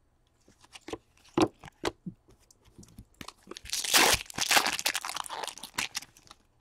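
Foil trading-card pack wrapper being torn open and crinkled: a few scattered light clicks and rustles, then dense crinkling for the last couple of seconds.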